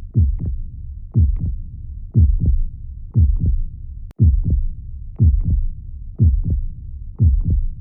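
Heartbeat sounds: a steady lub-dub, each beat a pair of low thumps, about one beat a second, over a constant low rumble. There is a brief click about four seconds in.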